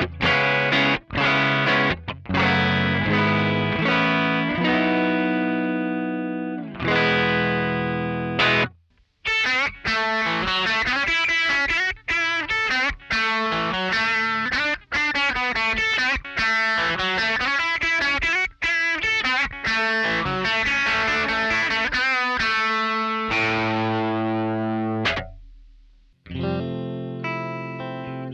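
Electric guitar played through a Joyo American Sound amp-simulator pedal, demonstrating its tones: strummed chords first, then after a short break a quicker run of picked notes, a chord left to ring and fade out about 25 seconds in, and then playing starts again.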